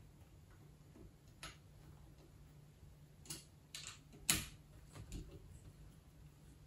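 A handful of light clicks as an Allen key is turned in the bolts of a scooter's handlebar clamp, tightening them down, the loudest about four seconds in.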